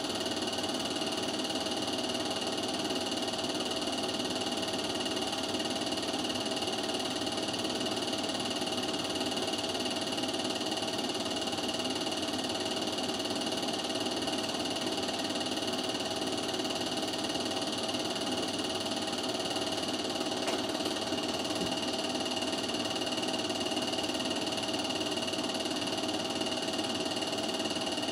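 Steady mechanical whir with hiss, even and unchanging throughout.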